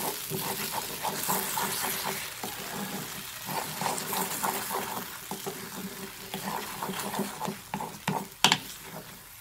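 Ground masala paste sizzling in a hot kadai while a flat spatula scrapes and stirs it around the pan, the paste being fried down until dry. A couple of sharper knocks near the end.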